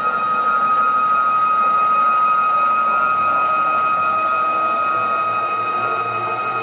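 Stepper motors of a CNC router table driving the gantry carriage at rapid traverse speed, giving a steady high-pitched whine that holds one pitch throughout.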